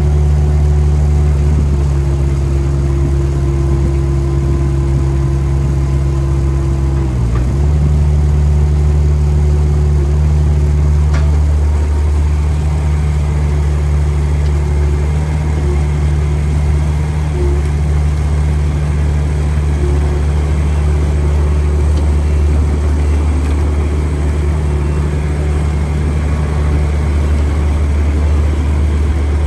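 Komatsu PC50MR mini excavator's Yanmar diesel engine running steadily, its pitch dipping briefly about seven seconds in before settling back.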